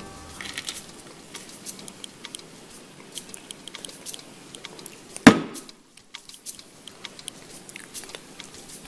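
Small clicks and taps of a glass cookie jar being handled and tapped over a cup of coffee, shaking crumbs onto the foam. About five seconds in there is one loud knock with a brief ring.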